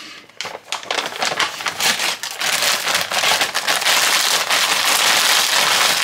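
Plastic food packaging crinkling as it is handled, ending on a bag of tropical fruit: a dense crackle that grows louder over the first two seconds and then holds.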